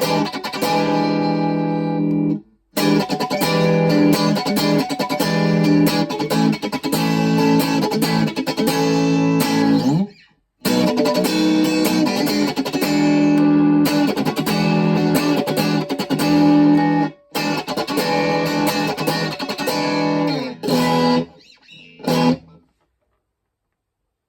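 Schecter OL-PT-TH thinline electric guitar played through a VOX Mini5 practice amp, in phrases broken by short pauses. The playing stops about 22 seconds in and is followed by silence.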